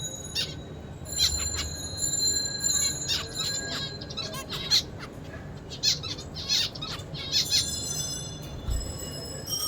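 Zebra finch singing: quick clusters of short, high notes.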